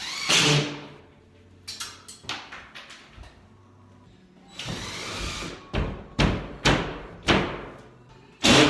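A series of sharp knocks and bangs, about four in a row in the second half with the loudest near the end, after a stretch of rushing, scraping noise.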